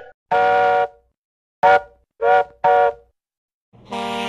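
A steam locomotive's chime whistle gives four short toots, several tones sounding together. Near the end a semi-truck's air horn starts a long, steady blast.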